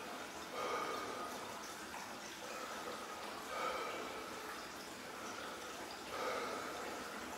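A man's slow, heavy breathing while he sits in an ice bath, one breath swelling up about every three seconds.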